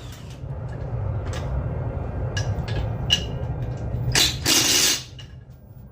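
A power tool working the bolts of a transmission support bracket on a 2014 Honda Accord, with a steady low rumble and scattered clicks, then one loud burst just under a second long about four seconds in.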